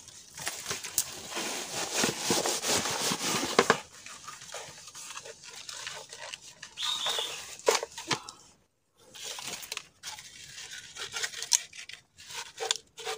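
Rustling and scraping of a bamboo tube trap being handled on muddy ground among dry leaves and grass: dense for the first few seconds, then scattered knocks and clicks.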